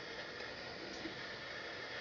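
Handheld gas torch flame hissing steadily while heating a soldered copper plumbing joint.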